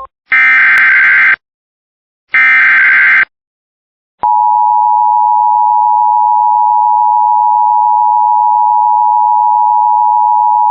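Two short bursts of Emergency Alert System SAME header data, a harsh digital screech about a second each, followed about four seconds in by the steady two-tone EAS attention signal that holds without a break.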